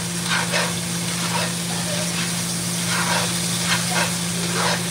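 Potatoes frying in olive oil in a pan, a steady sizzle over a constant low hum.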